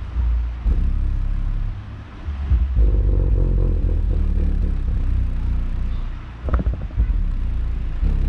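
JBL A1300HI car subwoofer playing bass-heavy music in a sound test: loud, deep bass notes that change and drop out briefly about two seconds in and again near six seconds.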